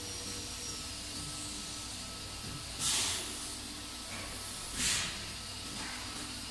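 Two short blasts of compressed air hissing, about three and five seconds in, the first about half a second long and the second shorter, over the steady hum of the machine shop.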